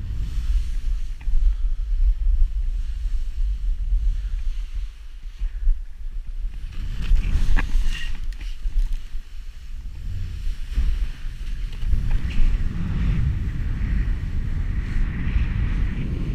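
Wind buffeting a body-worn camera's microphone during a fast snowboard descent, a steady low rumble, with the hiss of the snowboard sliding through powder snow that grows louder twice.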